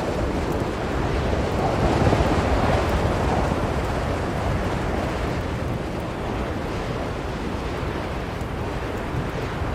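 Blizzard wind blowing steadily, a deep rushing noise that swells in a gust about two seconds in and then eases.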